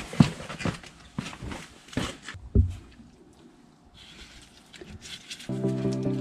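Sharp metallic clicks and knocks of a screwdriver levering the front brake pads back from the rotor in a Mercedes W204 caliper, about half a dozen in the first two and a half seconds. Background music comes in near the end.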